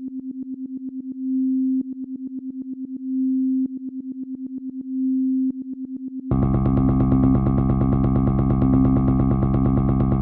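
Electronic music intro: a single synthesizer tone, made to buzz like a wasp, stutters in rapid pulses of about eight a second, broken by three brief held notes. About six seconds in, a thick, buzzy synth layer with deep bass joins and holds.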